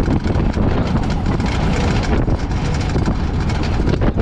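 Loud, steady rumbling with rapid clattering, as of wooden race carts rolling on pavement, with wind on the microphone.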